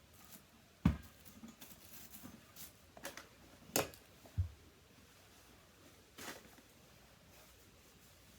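A few scattered knocks and clicks from objects being handled, the loudest a low thump about a second in, in a small room.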